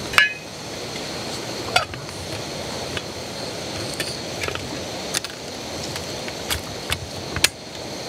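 A stainless steel MSR Alpine Stowaway pot being covered with its lid and its wire handle folded and latched over it: a sharp ringing metal clink about a quarter second in, then a string of lighter clicks and clinks, over a steady hiss.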